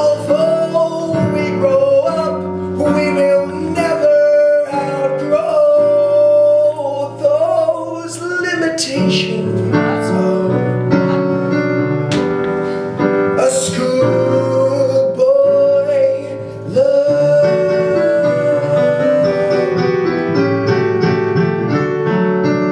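A song: a singer holds long, wavering notes over instrumental accompaniment.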